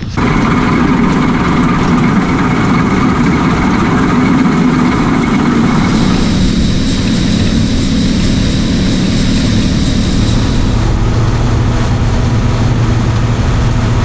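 John Deere combine running while harvesting soybeans: a steady, loud engine and threshing-machinery noise. A high steady whine joins about six seconds in, and a deeper hum takes over near eleven seconds.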